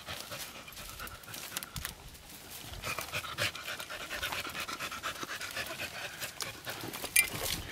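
Beagle panting and sniffing hard as it noses into a brush pile after a wounded rabbit, with many short crackles from twigs and dry leaves.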